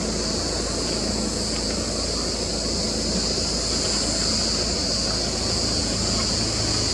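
Steady outdoor hillside ambience: an even, high-pitched hiss over a low rumble, with no distinct events.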